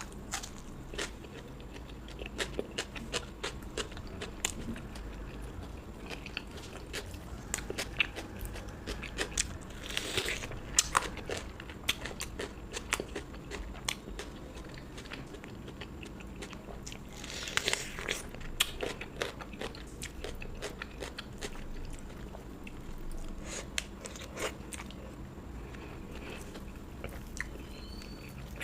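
Close-miked chewing and biting of food, many short crunchy clicks, with two louder spells of crunching about ten and eighteen seconds in.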